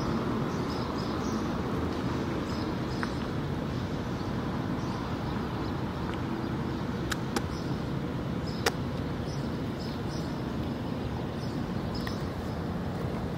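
Steady outdoor street background noise, like distant traffic, with faint high chirps now and then and a few sharp clicks a little past halfway.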